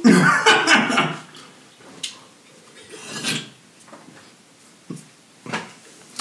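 A man drinking from a soda can: a short louder sound at the start, then quiet swallowing with a few small clicks of the can and mouth.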